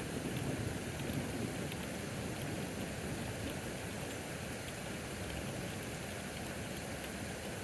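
Heavy rain falling steadily during a thunderstorm, a continuous even hiss with a few faint scattered ticks of drops striking.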